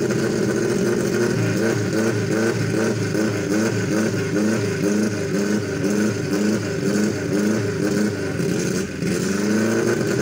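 Daihatsu Taft Hiline 4x4 engine revving hard and unevenly, its pitch swinging up and down about twice a second, as the vehicle strains while stuck steeply tilted in deep mud.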